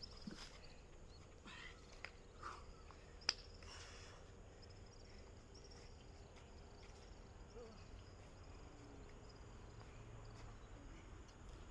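Faint insects chirring in a quiet outdoor ambience, with a few scattered clicks and knocks in the first four seconds, the sharpest about three seconds in.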